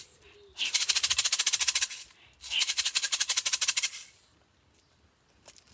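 Homemade shaker shaken fast in two long bursts of about a second and a half each, a dry rattling hiss used to mimic a snake's hiss.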